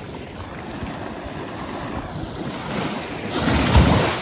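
Small waves washing at the shoreline with wind buffeting the microphone, swelling to a louder rush about three and a half seconds in.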